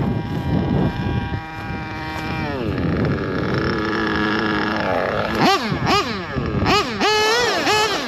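Samurai RM .21 nitro engine in a Losi 8ight-T truck. It runs high and steady, drops back to a low idle about two and a half seconds in, then is blipped through a string of quick throttle revs, about two a second, from about five and a half seconds.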